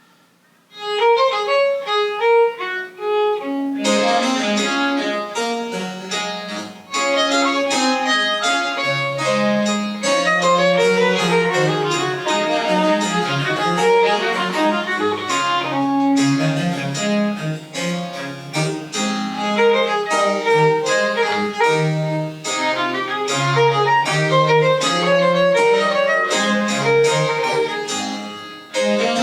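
Live French Baroque chamber music starting about a second in after a brief hush: a fast melody line over a moving bass, with many crisp plucked note attacks.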